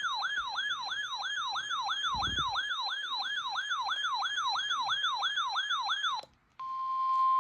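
Electronic siren-style alert tone: a rapid falling sweep repeating about three times a second, which cuts off about six seconds in. After a brief gap, a steady single-pitch alert tone starts, like the alarm tone that opens a weather radio warning.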